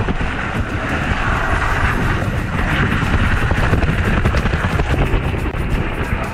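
Water rushing and splashing with a loud, steady low rumble as a rider slides down a water slide, the camera held in the spray.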